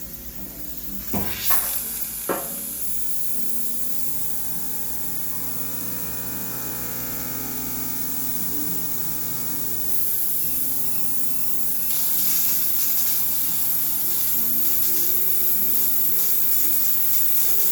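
High-pressure steam cleaner sterilizing a washing machine: a few knocks near the start, a steady hum, then from about ten seconds in a loud hiss of steam jetting out.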